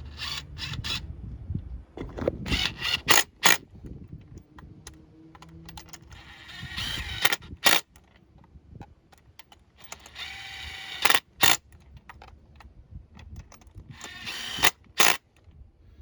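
A run of sharp mechanical clicks and knocks, mixed with a few short bursts of rustling noise, each a second or so long. This is handling noise, with no engine running.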